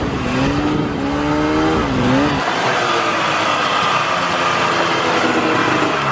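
A vehicle engine running under way, its pitch rising and falling over the first couple of seconds, then holding fairly steady, and dropping off right at the end.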